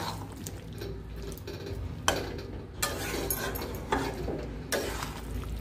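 Metal spatula stirring and scraping thick masala with chunks of raw jackfruit and potato around a metal kadai, with several sharp scrapes against the pan over a faint sizzle.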